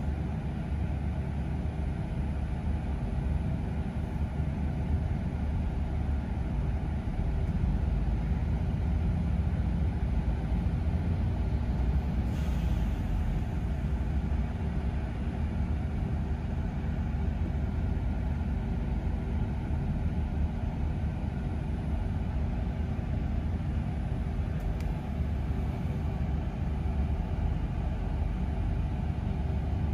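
Double-decker bus engine idling while the bus stands at a stop, a steady low rumble with a hum heard from the upper deck. A short hiss about twelve seconds in.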